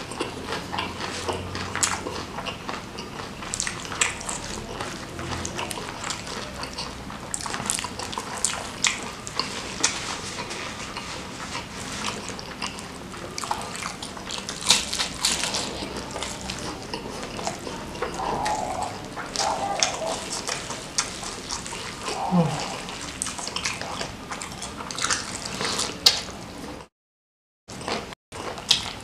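Close-miked eating: chewing and crunching of food with wet, sticky mouth sounds, and a short hum about two-thirds through. The sound cuts out briefly near the end.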